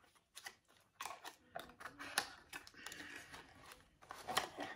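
Light clicks and rustling of a perfume box being handled and opened by hand, with a short stretch of soft scraping in the middle.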